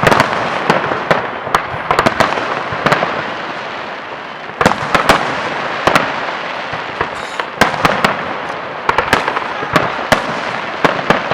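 Fireworks display: a continuous crackle of bursting shells with many sharp bangs, in clusters that come every second or two.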